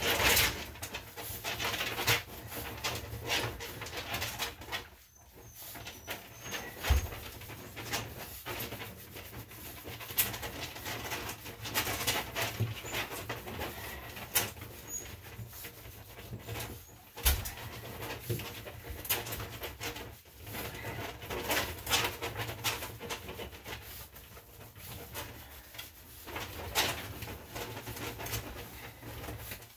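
Hands scrubbing and squeezing shampoo lather through a wet Yorkshire Terrier's coat: irregular wet rubbing and squishing strokes, with a few dull thumps.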